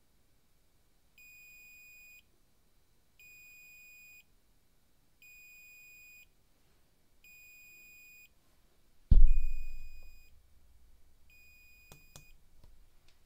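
Small active buzzer, muffled by tape over its opening, beeping six times, each beep about a second long and one every two seconds: the Meshtastic external-notification alert for an incoming message. About nine seconds in there is a loud thump, and near the end a few clicks, after which the beeping stops.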